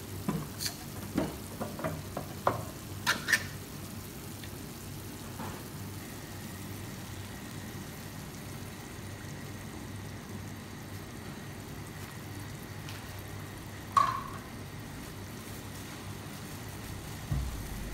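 A pan of masala vegetables in sauce simmering on a gas stove with a steady soft sizzle as coconut milk is poured in. A few light sharp taps come in the first three seconds, and a single knock about 14 seconds in.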